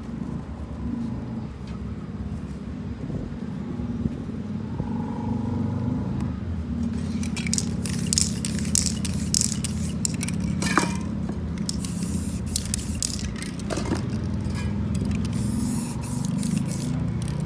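Aerosol spray-paint can sprayed in many short hissing bursts from about seven seconds in, with a few sharp clicks in between, over a steady low rumble.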